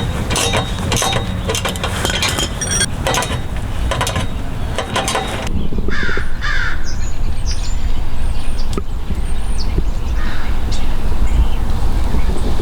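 Rapid, irregular metallic clicking of a ratchet wrench tightening exhaust bolts for about five seconds. Then a steady low rumble with a few short crow caws.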